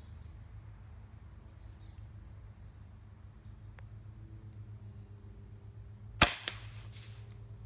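A single shot from a Hatsan Nova QE .25-calibre PCP air rifle with a shrouded, moderated barrel: one sharp crack about six seconds in, followed by a fainter click about a third of a second later. Crickets chirp steadily throughout.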